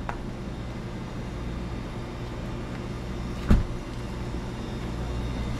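Steady low mains-frequency hum of refrigerated drink display cases and freezers running in a small shop, with a single sharp thump about three and a half seconds in.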